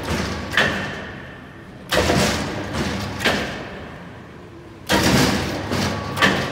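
Edwards Pearson sheet-metal guillotine shear cycling: five heavy thumps, one about every second and a half, each followed by a fading rush of noise.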